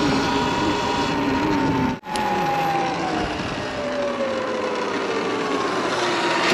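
Electric motor whine of a Surron Light Bee X electric dirt bike under way, over wind and tyre noise. The whine slides steadily lower in pitch as the bike slows, then begins to rise again near the end as it picks up speed. The sound cuts out for an instant about two seconds in.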